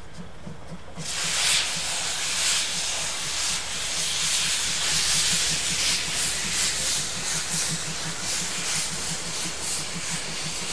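DR class 52.80 steam locomotive letting off steam: a loud hiss starts suddenly about a second in and keeps going, over a low, regular pulsing.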